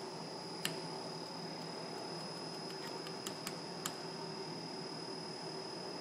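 Bridgeport Romi EZ Path S CNC lathe running with its spindle on and no cut being made: a steady hum with a thin high whine. A few light clicks come through about a second in and again near four seconds.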